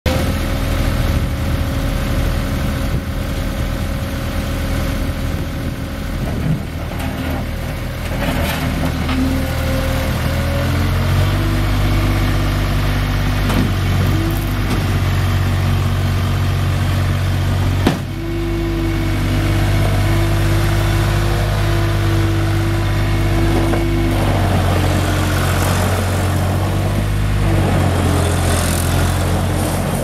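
New Holland L180 skid steer loader's diesel engine running, steady at first and then held at higher revs from about eleven seconds in while the loader arms are raised, with one sharp click about halfway through.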